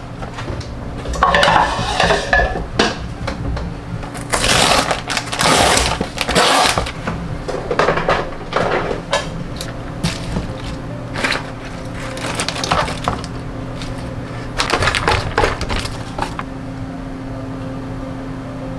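Plastic salad-mix packaging crinkling and rustling in irregular bursts as it is opened and handled, and lettuce being lifted out with tongs into a wooden bowl. A steady low hum runs underneath.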